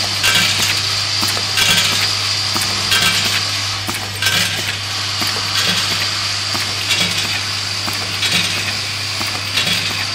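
Screw counting and packaging machine running: a steady low hum under a constant metallic rattle and clinking of screws, with a louder burst of clinks about every 1.3 seconds in time with the machine's cycle.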